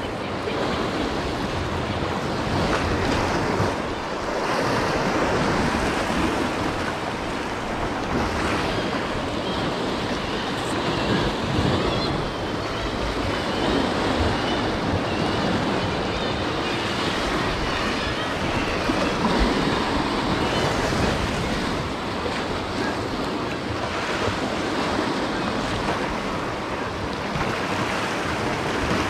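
Sea swell washing and breaking against the rocks below, a steady rushing noise, with wind on the microphone.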